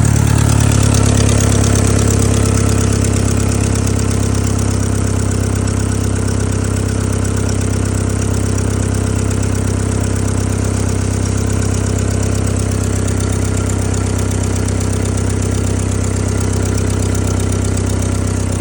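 Car engine idling steadily with its exhaust tip plugged, so the exhaust gas is forced out through a leak at the exhaust manifold connections. It is a little louder for the first couple of seconds, then settles.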